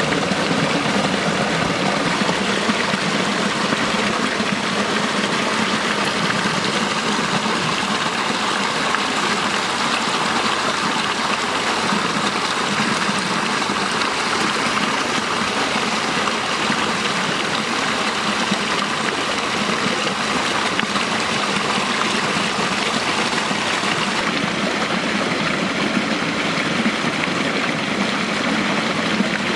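Small stream cascading over rocks, a steady rush of water.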